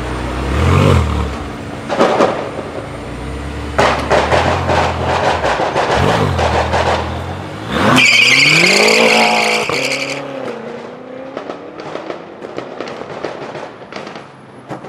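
Modified cars pulling away, engines blipping up and down with a rapid crackle from the exhausts. About eight seconds in, tires squeal for about two seconds as one car spins its wheels under hard acceleration and its revs climb, then the engine fades away.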